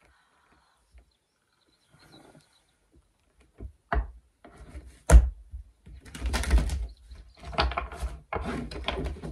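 A deck of oracle cards shuffled by hand. After a few near-quiet seconds come a sharp tap, then a louder knock against the table about five seconds in, then several seconds of rustling shuffles.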